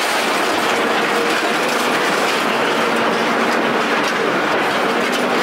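Loud, continuous rattling clatter with a faint low hum underneath, unchanging throughout.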